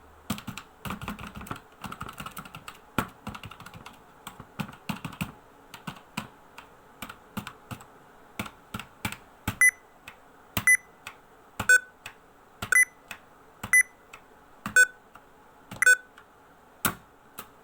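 Clicky keys being pressed: a quick run of clicks for the first few seconds, then sparser single presses. From about ten seconds in come louder single clicks roughly once a second, each with a short high ping.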